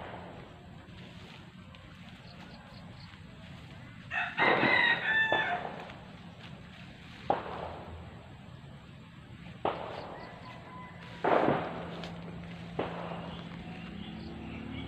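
A rooster crows once, about four seconds in. Then four or five single sharp gunshots from a firing range go off, a second or two apart.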